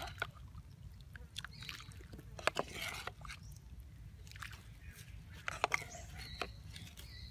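A spoon stirring potato sticks in a clay pot of water: water sloshing and swishing, with scattered sharp clicks and knocks.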